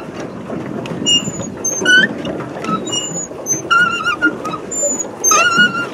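Paddle boat's pedal crank squeaking, short high squeaks about once a second, some of them wavering, over a steady low churn of the paddle wheel and lapping water.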